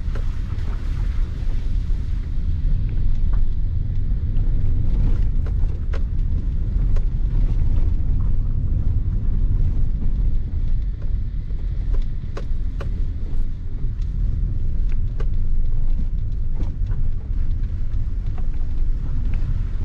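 Cabin noise of a Maruti Suzuki Ignis driving in second gear over a rough, broken road: a steady low rumble of engine and tyres, with frequent short clicks and knocks as the car jolts over the bumps.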